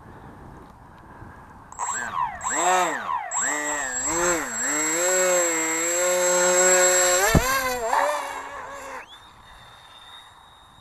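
Electric motor and propeller of a small RC flying wing whining as it revs unevenly up and down, then runs steady at high revs. A sharp knock comes about seven seconds in and the motor winds down, leaving a thin high tone. The owner takes the misbehaviour for a speed-controller timing error.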